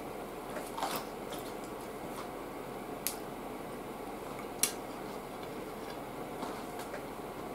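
Wooden chopsticks clicking against a ceramic plate a few times, the loudest a single sharp click a little past halfway as they are laid down on the plate; soft chewing in between.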